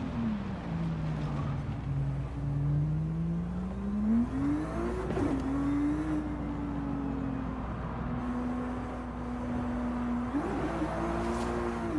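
Sports car engine running with its pitch changing: it drops at the start, holds low for a few seconds, climbs from about four seconds in, then settles into a steady note with a short quick blip near the end.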